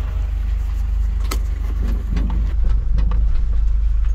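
Camper van engine running at low speed, heard from inside the cab as the van creeps forward onto metal ramps, with a few sharp knocks; the engine rumble grows louder about halfway through.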